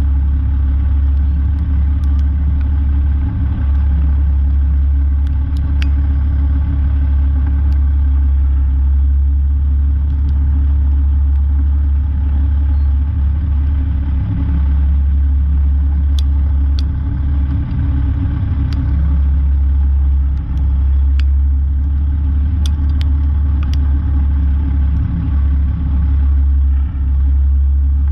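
Peterbilt semi truck's diesel engine running with a steady low drone, with occasional faint clicks over it.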